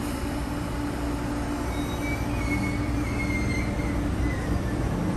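MTR East Rail Line MLR (Metro-Cammell) electric train pulling away from the platform: a steady low hum over a rumble that grows louder as it gathers speed. A thin high squeal comes in about two seconds in and fades before the end.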